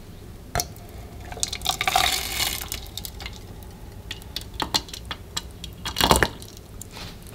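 Hot water poured from a kettle into a plastic measuring cup, loudest in the first few seconds of the pour, with a few sharp knocks, the loudest about six seconds in.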